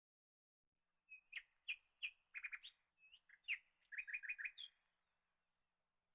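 A small bird chirping: a quick string of short, sharp chirps and rapid trills, starting about a second in and lasting about four seconds.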